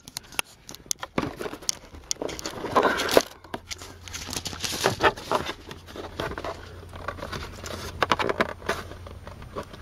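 Plastic clips and panel being worked free by hand from a car's dashboard: an irregular run of clicks, snaps and plastic rattling, with a couple of brief plastic squeaks.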